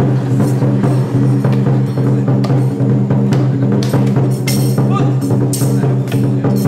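Traditional gong-and-drum music of a Taiwanese Song Jiang martial troupe: drums beat under repeated clashing cymbal strikes, which grow denser in the second half, over a steady low drone.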